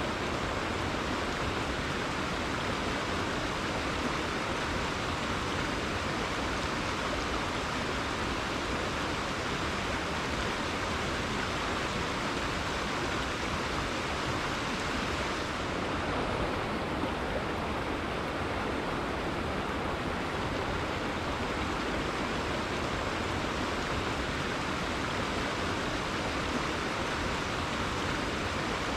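Steady rushing of a rainforest river's flowing water, an even wash of noise without breaks. The higher hiss thins slightly about halfway through.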